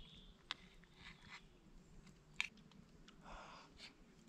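Near silence with faint chewing and a few scattered small clicks.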